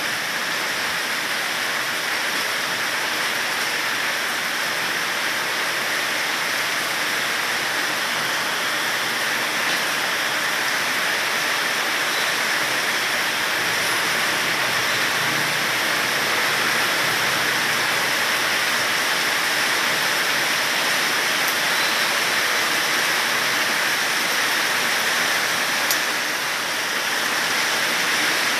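Steady rain falling, an even hiss of water that does not let up, with one sharp click about 26 seconds in.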